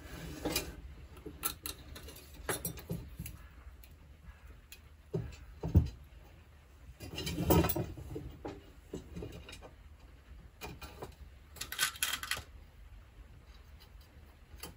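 Bicycle spokes being threaded through the hub flange and into the rim while lacing a wheel: scattered light metallic clicks and rattles with handling noise, and a dull knock about six seconds in.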